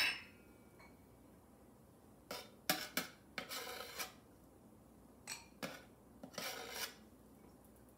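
Flour being scooped with a measuring cup and tipped into a mixing bowl. It comes as several short bursts of scraping and light clinking of the cup against the bowl, spread over a few seconds.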